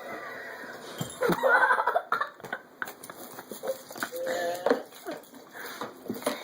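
A young child's high-pitched squeals and babbling, with a few light knocks.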